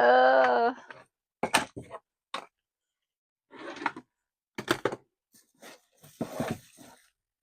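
Items being moved about on a vanity table top: a series of short, irregular knocks and clatters, with a longer sliding noise about six seconds in.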